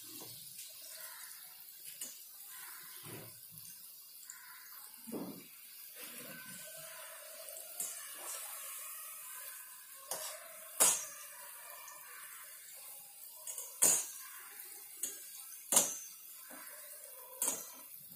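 Gulab jamun frying in a steel pan of oil with a soft, steady sizzle, stirred with a slotted spoon that clinks sharply against the pan several times, mostly in the second half.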